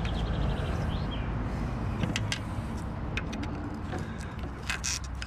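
A few short light clicks and scrapes of a screwdriver working rubber suspension bushes and metal parts loose, over a steady low hum.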